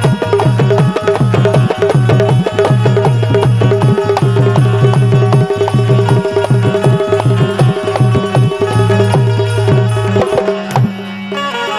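Bundeli Rai folk music playing instrumentally: a fast, driving hand-drum rhythm under a sustained melody line, with no singing. The drums thin out briefly near the end.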